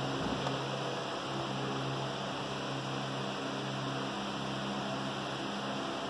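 Faber coffee machine running with a steady hum and an even hiss.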